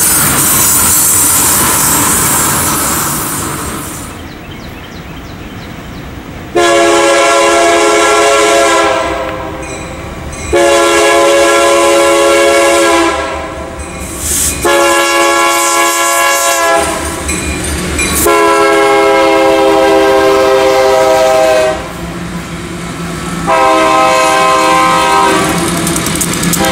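Freight cars rolling past with wheel noise that fades over the first few seconds. Then the air horn of an approaching Union Pacific diesel locomotive sounds a series of long, loud, multi-note blasts with short gaps between.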